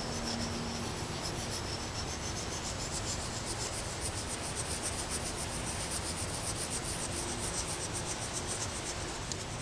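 Knife blade scraping lightly over a Fallkniven DC-4 whetstone in quick small circles, a fine rubbing that grows stronger about three seconds in. This cross-wise circular pass over the short width of the stone puts bite on an already sharp edge.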